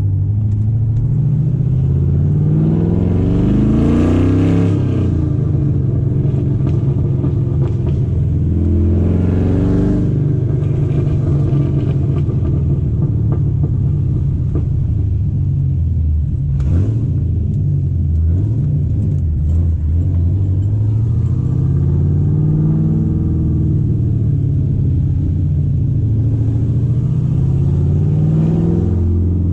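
Corvette V8 engine running under load as the car is driven, its pitch climbing in several long rises and dropping back between them as it accelerates and shifts.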